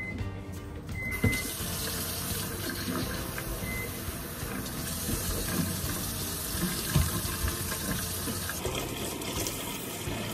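Water running steadily, starting about a second in and stopping near the end.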